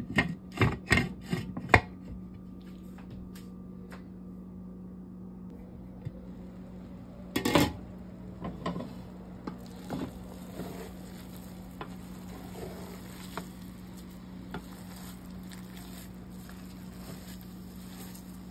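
A glass lid knocking against a stainless steel pot in a quick run of clinks, then a louder clatter. After that, a wooden spatula turns and scrapes cooked rice in the pot with soft scattered knocks, over a steady low hum.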